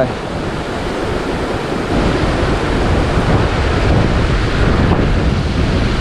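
Wind gusting across the microphone in a steady, low-heavy rush, over the running water of a mountain stream. It grows louder about two seconds in.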